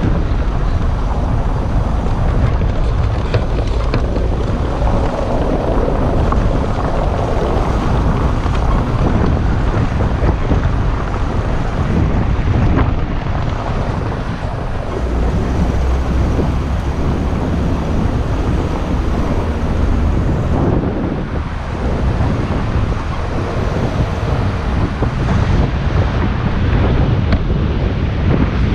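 Taxi driving through city streets, partly over cobblestones: a steady low rumble of tyre and engine noise with wind buffeting the microphone.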